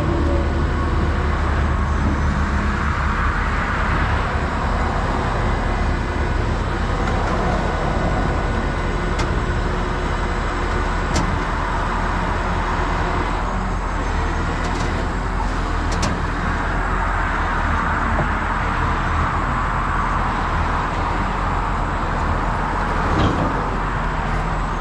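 Peterbilt 389X rotator tow truck's diesel engine running steadily, with traffic passing on the highway. A few light clicks sound around the middle.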